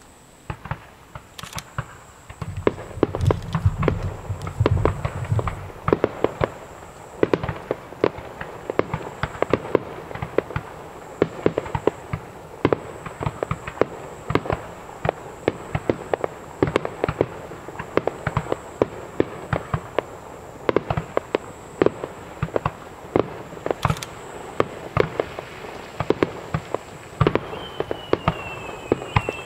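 Aerial fireworks finale: a rapid, unbroken barrage of shell bursts, several bangs a second, starting about two seconds in, with a deep rumble under the first few seconds.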